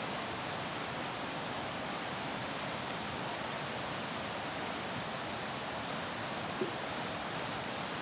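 Shallow rocky river rushing through rapids over boulders: a steady, unbroken rushing hiss of white water.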